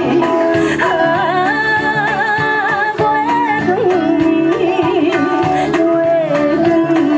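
A woman singing into a microphone with a live band accompanying her. Her voice holds long notes with vibrato.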